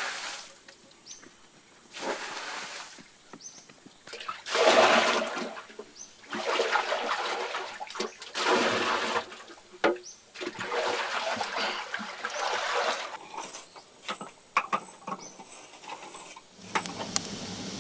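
Water poured from a wooden bucket, splashing into a shallow pool, about seven pours in a row, each lasting about a second. Near the end, scattered light knocks and clicks.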